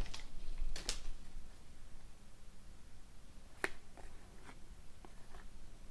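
A few sharp, isolated clicks and taps from hockey cards and packs being handled on a table.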